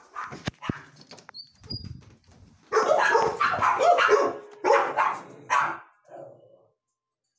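A few sharp knocks in the first two seconds, then a dog barking repeatedly, a quick string of about five barks starting near three seconds in.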